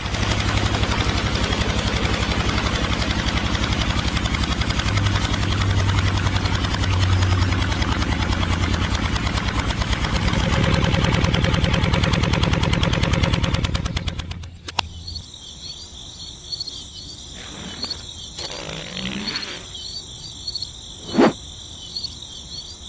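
Small electric motor of a miniature belt-driven water pump running with a steady hum and a fast rattling buzz while water splashes from the spout; it cuts off suddenly about 14 seconds in. After that, crickets chirp steadily, with a sharp click about 21 seconds in.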